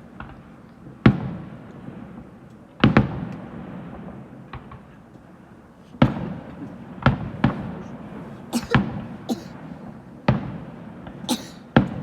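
Fireworks display: aerial shells bursting in irregular sharp bangs, each followed by an echoing rumble, coming faster in the second half, some with a brief hiss.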